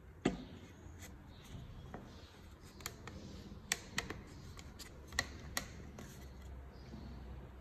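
Wood and hand tools being handled: a handful of sharp, separate taps and clicks over a low steady hum.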